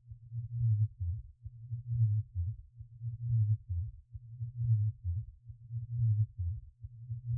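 A slow, deep heartbeat sound effect, each beat a close double stroke, repeating evenly about once every 1.4 seconds, about five beats in all.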